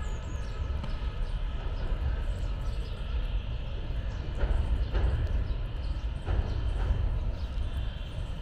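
Busy outdoor market ambience: a steady wash of background chatter and traffic noise over a heavy low rumble, with a few short louder sounds around the middle.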